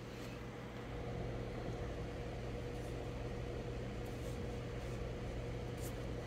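Room tone: a steady low hum and light hiss, with a few faint ticks.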